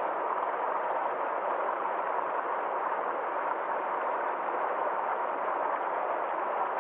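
Stream water flowing steadily in an even, unbroken rush.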